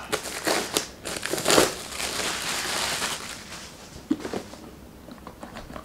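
Clear plastic shrink-wrap crinkling as it is torn and peeled off a laptop box. The crinkle is loudest for the first three seconds, then a few fainter rustles and a sharp click follow about four seconds in.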